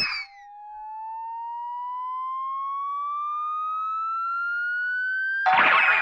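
Cartoon sound effect: a long, clean whistle-like tone rising slowly and evenly in pitch for about five seconds. A short, noisy burst cuts in near the end, and then the tone begins to fall.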